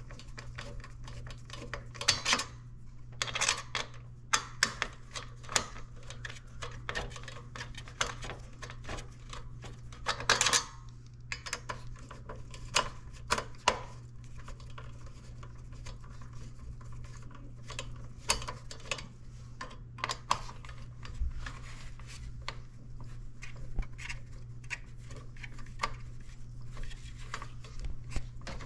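Phillips screwdriver turning out the metal mounting screws of a CPU cooler: irregular light metallic clicks and taps, with a few louder clicks, over a steady low hum.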